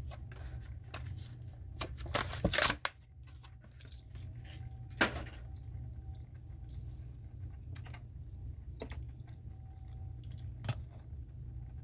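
Hot Wheels blister-card packaging being handled and torn open: crinkling plastic and card with scattered clicks, a loud rip about two seconds in, and single sharp snaps around five seconds and near the end. A steady low hum runs underneath.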